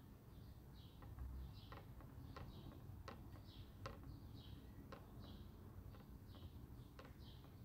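Faint light clicks of fork tines pressing down along the edges of puff pastry on a wooden cutting board, at irregular intervals. Behind them, a faint high chirp repeats about once a second.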